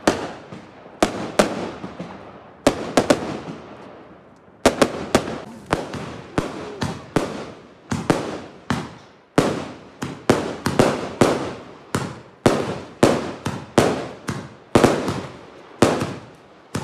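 Consumer fireworks bursting overhead in a rapid, irregular run of sharp bangs, roughly two a second, each trailing off in an echo, with a brief lull about four seconds in.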